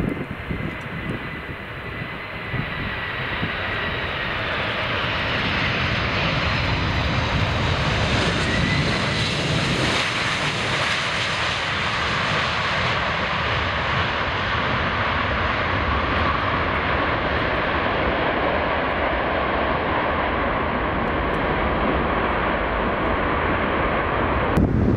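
A Boeing 747's four jet engines passing close by. A high fan whine is heard at first, then loud jet noise builds over several seconds, is brightest about ten seconds in, and holds steady. The sound changes abruptly just before the end.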